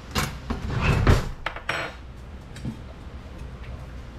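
Metal kitchenware clattering and clinking: a spoon, a mesh strainer and a steel bowl being handled on a countertop. The clatter is loudest about a second in, then settles into quieter handling noise.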